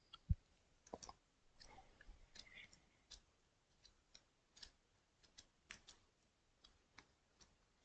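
Near silence: room tone with a short low thump just after the start and a few faint scattered clicks.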